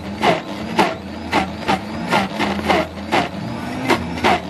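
Commercial countertop blender running under load while crushing a milkshake with ice: the motor hums and its pitch dips again and again, while hard chunks knock against the plastic jar two or three times a second.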